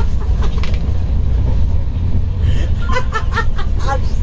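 Steady low rumble of a moving passenger train heard from inside its first-class AC coach, with a woman laughing briefly near the end.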